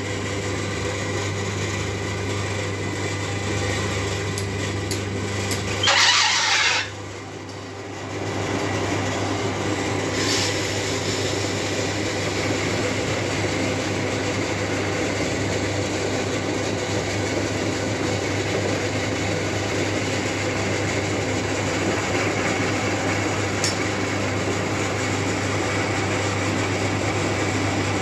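Metal lathe running steadily while turning a steel shaft down to a bearing size, a constant low hum under the machine's running. About six seconds in, a loud harsh noise lasts about a second, then the level drops for a second before the steady running resumes.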